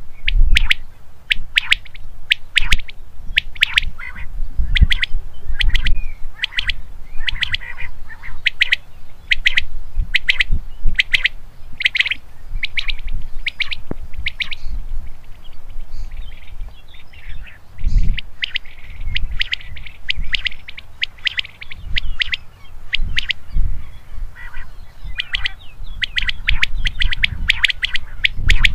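Male common quail singing its 'wet-my-lips' song: short, sharp notes in quick clusters, repeated over and over, with low rumbling underneath.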